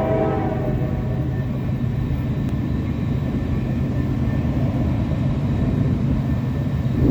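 Diesel train horn sounding and fading out within the first second, followed by the steady low rumble of the approaching diesel locomotive.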